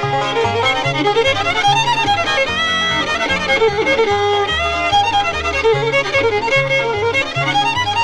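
Bluegrass band playing an instrumental break with a fast fiddle melody on top, over a bass line stepping from note to note and rhythm guitar.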